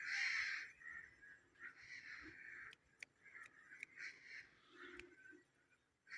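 A parrot giving a string of quiet, short scratchy chirps, with a couple of sharp clicks in between.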